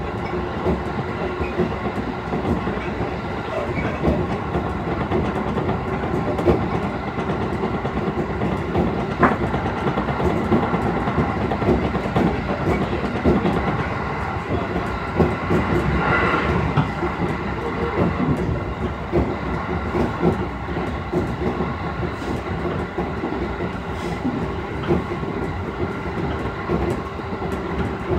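Running sound inside a JR East 211 series electric train car at speed: a steady rumble of wheels on rail with a faint hum, and occasional clicks of rail joints over it.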